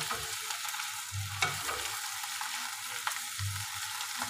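Spinach and onions sautéing in a pan with a steady sizzle, being stirred and turned with a spatula, with a few light clicks and scrapes of the utensil against the pan.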